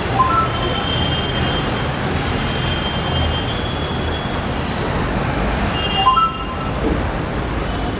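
Steady rumbling noise with two short electronic beeps, one near the start and one about six seconds in.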